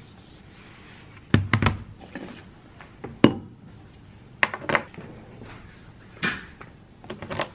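A series of knocks and thunks, about five clusters, as a laptop and a metal water bottle are set down on a desk and an office chair is moved.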